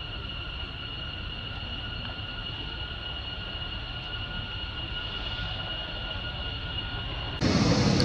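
Outdoor ambience: a steady, high two-note drone over a low rumble. Shortly before the end it cuts abruptly to a much louder, noisy sound.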